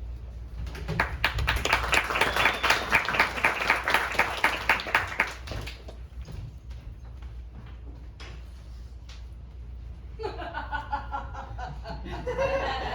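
Audience clapping for several seconds, then dying away to a few scattered claps.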